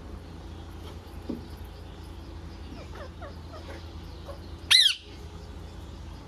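Green parrot giving a few faint, short chirps, then one short, loud, shrill screech near the end, over a low steady hum.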